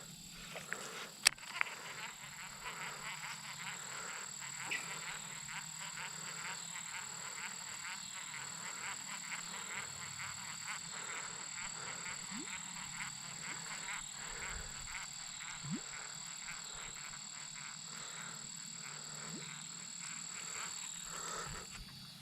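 Frogs calling in a pulsing chorus, about three pulses a second, over a steady high-pitched whine that stops near the end. A single sharp click comes about a second in.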